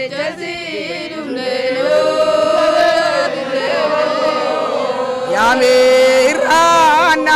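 Traditional Oromo chanting: voices sing a long, wavering melodic line over one note held steady beneath it, swelling louder partway through.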